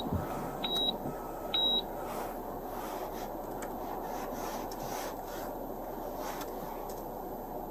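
Electronic two-tone beeping, a lower tone and then a higher one, repeating about once a second and stopping about two seconds in. Under it is a steady low hum, with a few faint light ticks.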